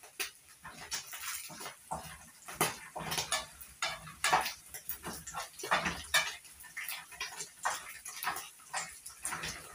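Metal ladle scraping and knocking against a frying pan as small fish are turned over in hot oil: a rapid, irregular run of clatters and scrapes.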